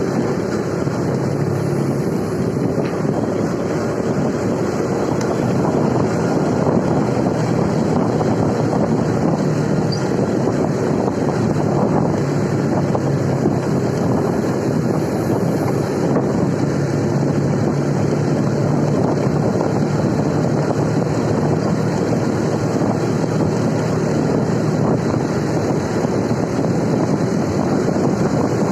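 Motorcycle engine running steadily at cruising speed under heavy wind noise on the microphone while riding.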